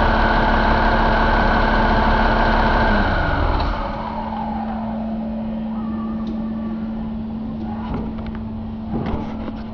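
Cummins ISX15 inline-six diesel engine running on a test stand, then slowing about three seconds in, its pitch falling and its sound getting quieter. A steady hum continues after, with a few light clicks near the end.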